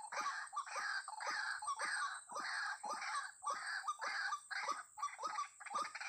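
White-breasted waterhen's harsh 'ruak' call repeated in a steady rhythm, about two calls a second.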